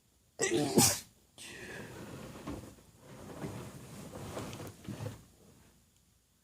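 A woman's stifled sneeze, held quiet: a sharp burst just under a second in, followed by several seconds of softer, uneven sounds.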